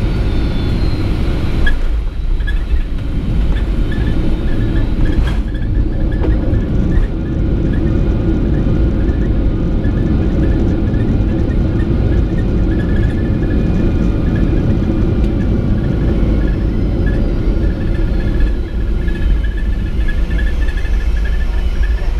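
Boeing 757-300 cabin noise as the jet rolls out after landing: a steady, loud rumble of the engines and the wheels on the runway, with a faint whine falling in pitch in the first few seconds.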